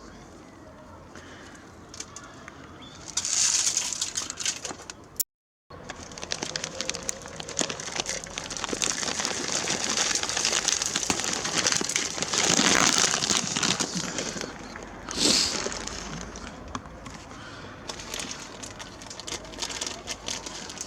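Birds at a garden feeder calling, over a dense crackling rustle that swells in loudness a few times.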